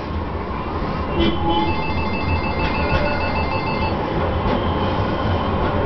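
A rapid pulsing electronic ring, about six pulses a second for about two seconds, over a steady low rumble and hiss of background noise, with a few faint clicks.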